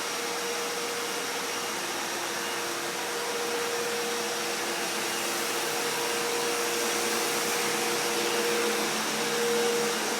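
Vacuum cleaner running steadily: a constant whine over a rushing hiss, briefly a little louder about nine and a half seconds in.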